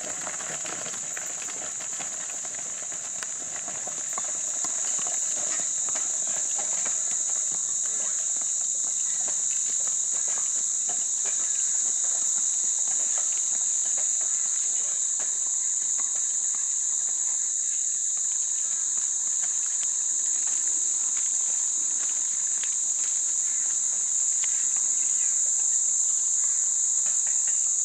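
A steady, high-pitched insect chorus, with the faint clip-clop of draught horses' hooves as they pull a forecart along the road.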